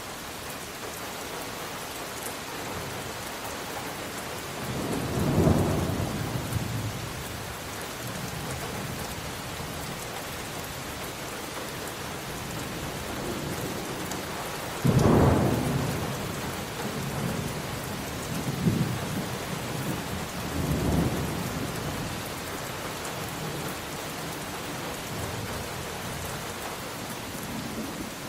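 Steady heavy rain falling, with rolls of thunder: a rumble about five seconds in, a sharper, louder clap about fifteen seconds in, then a few smaller rumbles.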